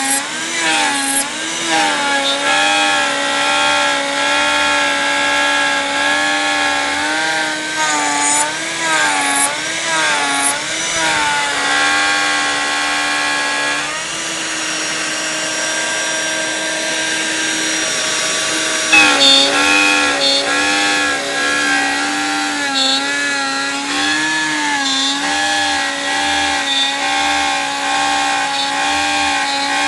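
Homemade 3-axis CNC router machining baltic birch plywood: the router motor runs and cuts continuously under a whine whose pitch keeps rising and falling as the axes change speed along the toolpath. Midway the pitch holds steady for a few seconds, then the wavering resumes.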